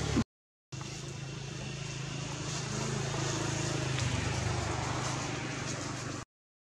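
Steady low drone of a motor vehicle's engine running, a little louder in the middle. The sound drops out completely for about half a second twice, shortly after the start and just before the end.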